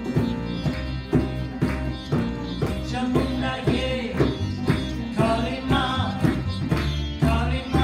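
Live kirtan music: tabla drumming in a steady pulse under acoustic guitar and harmonium, with a woman singing.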